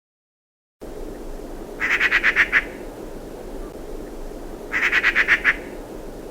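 A frog calling: two rapid pulsed trills, each under a second long and about three seconds apart, over a steady low background hiss. The sound cuts in suddenly just under a second in, after silence.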